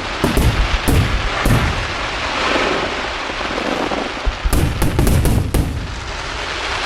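Aerial fireworks bursting: several sharp bangs in the first second and a half, then a steady crackle of shells, then a rapid cluster of bangs about five seconds in.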